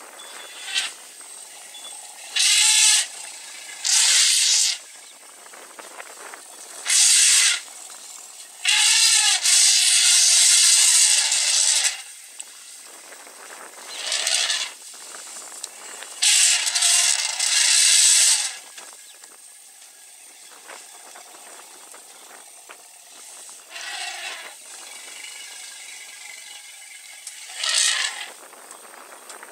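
African elephants trumpeting in a series of loud, harsh blasts, the longest about three seconds.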